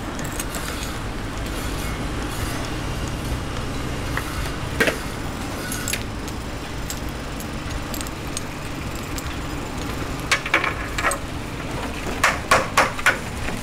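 Construction-site noise: a steady low rumble with a few scattered clinks, then a quick run of sharp metallic knocks near the end.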